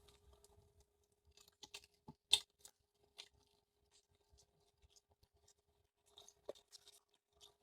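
Faint, scattered clicks and smacks of someone chewing tajin-coated chewy candy, with one louder click a little over two seconds in.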